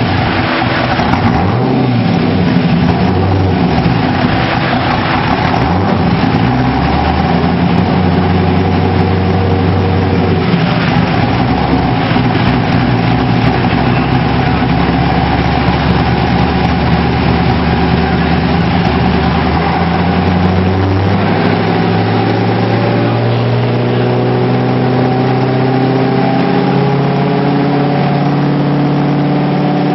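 Factory Five GTM supercar's engine running steadily at a loud level, its pitch shifting at a few points and creeping up over the last third.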